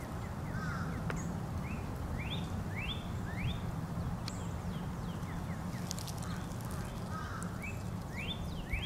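Bird calls: a run of four or five quick rising chirps, heard twice, each time after a short warbling note, over a steady low rumble.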